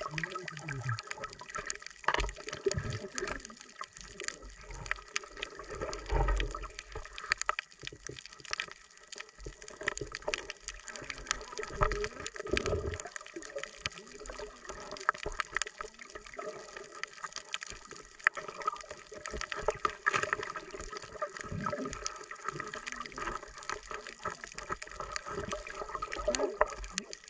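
Underwater sound picked up by a camera in its housing on a coral reef: muffled water movement with a dense, steady crackle of small clicks, and a few low thumps.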